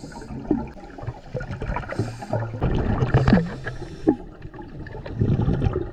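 Water gurgling and sloshing around a diver, with scattered small knocks and a couple of short hisses.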